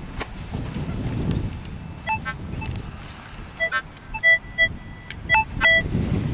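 Minelab CTX 3030 metal detector giving a string of short beeps at changing pitches as the coil sweeps a target still left in the hole, with wind rumbling on the microphone.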